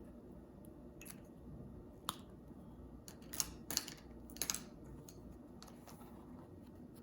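Gel pen being handled and swatched on paper: a handful of short clicks and scratches, the loudest bunched around the middle.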